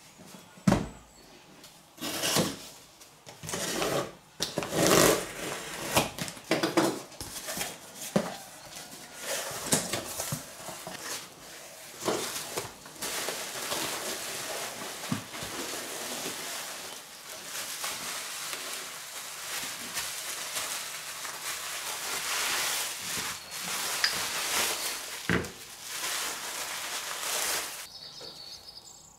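A cardboard box being unpacked by hand: foam packing cubes and bubble wrap rustling and crinkling, with scattered knocks of the box and parts on the table, the loudest about a second in.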